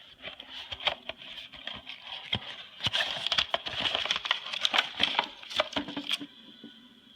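Handling noise of plastic crinkling with many sharp clicks, as a packaged cable is brought out and turned in the hands. It is busiest in the middle and dies down about a second before the end.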